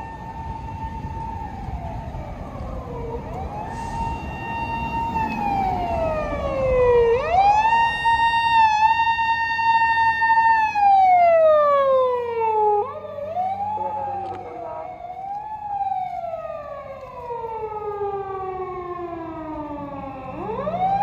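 Japanese police patrol car siren wailing: each cycle rises quickly, holds a high tone, then slides slowly down, about five times. It is loudest a third to halfway in, and a second siren overlaps it around two-thirds in.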